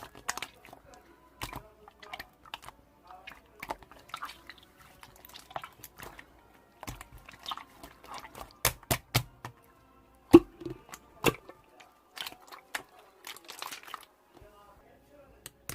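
Irregular sharp clicks and taps of typing, bunched in short runs, a few of them louder than the rest, over faint background music.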